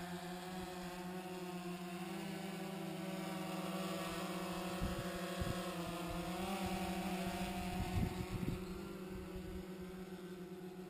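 DJI Phantom 3 Advanced quadcopter's four propellers buzzing steadily in flight. The pitch wavers around the middle as it manoeuvres, then the buzz fades near the end as it flies away. A few low thumps sit in the middle.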